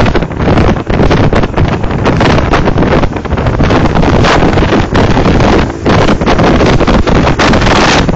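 Loud wind buffeting on the microphone from riding at speed on a motorcycle, mixed with the engine and road noise of a group of motorcycles and scooters riding alongside.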